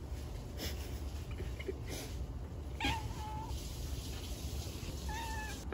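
Domestic cat meowing twice, a longer meow about three seconds in and a short one near the end, asking to be fed while being told to wait.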